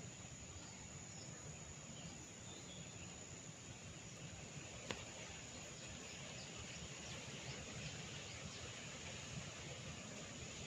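Quiet steady background noise under a steady high-pitched whine, with a single sharp click about five seconds in.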